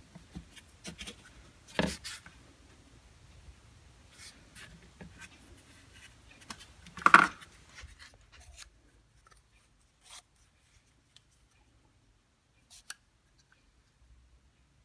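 Workbench handling sounds: light scratching and small clicks as the workpiece and tools are moved about, with two louder knocks about two seconds in and about seven seconds in, then only a few faint ticks.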